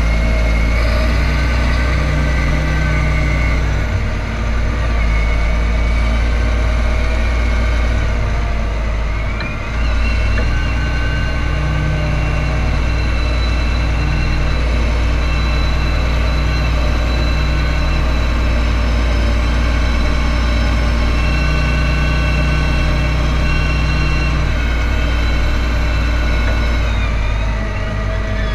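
John Deere tractor's diesel engine running steadily while driving, heard close up from the hood, with a high whine over the deep engine note. About a third of the way in the sound dips briefly and the whine then steps up in pitch; near the end it drops again.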